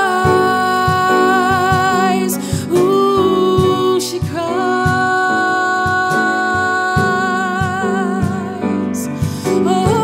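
A woman singing long held, wordless notes with vibrato, pausing briefly about two seconds in, about four seconds in and near the end, over piano chords and a soft, regular low percussion beat.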